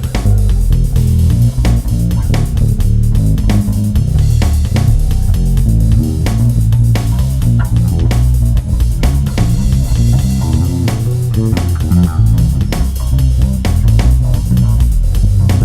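Improvised instrumental solo: low plucked string notes moving from note to note, with a drum beat behind them.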